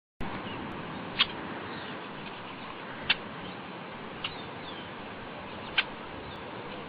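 A bird calling: four short, sharp chirps about two seconds apart, with fainter chirps in between over a steady background hiss.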